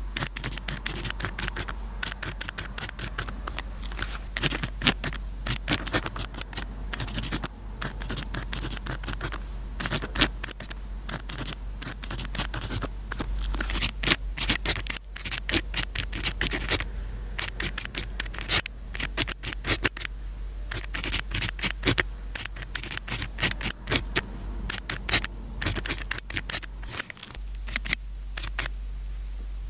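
Close-up scratching of a pen nib on paper during handwriting: a dense, irregular run of short strokes, with a brief lull near the end.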